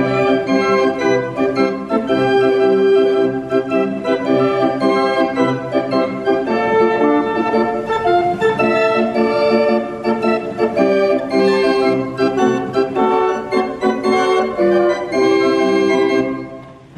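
Wurlitzer band organ playing a lively tune on its pipes, loud and continuous. The music stops about half a second before the end.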